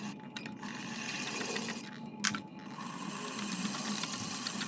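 Loop trimming tool scraping and shaving leather-hard clay from a teapot body turning on a pottery wheel, a steady scraping hiss, with a brief knock a little over two seconds in.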